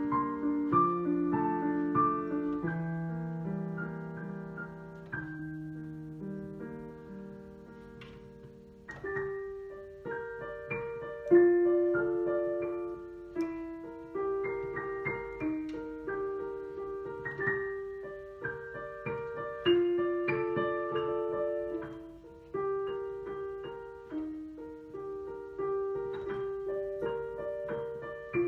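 Solo piano playing, its notes ringing on over one another. The playing thins and grows softer for a few seconds. About nine seconds in it picks up again, with a strong accent soon after.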